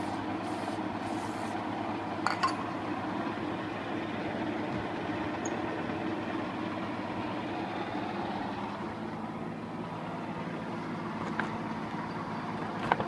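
A machine running steadily with a continuous motor hum. There are a couple of sharp clicks about two seconds in and near the end.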